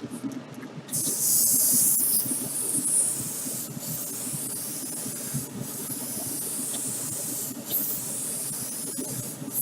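Clear coat being sprayed onto a model car body: a steady hiss of spray that starts about a second in, with brief pauses every couple of seconds between passes.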